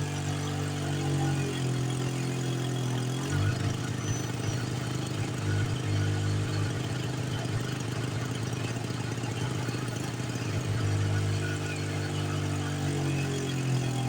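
AB-1 portable petrol generator's engine running steadily. Its pitch drops for a couple of seconds about a second and a half in, and sags again near the end before picking back up, as load comes on and off.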